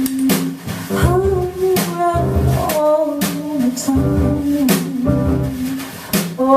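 Jazz quartet playing live: piano, bass and drums, with the drummer keeping time in regular cymbal strokes.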